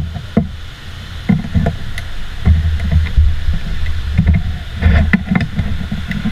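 Metal paint can of oil primer being worked open by hand: scattered sharp clicks and knocks of the lid and can, over a low rumbling handling noise that grows heavier about halfway through.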